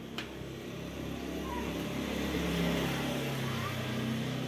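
A motor vehicle passing by: a low engine hum that grows louder to a peak a little past midway, then eases off slightly.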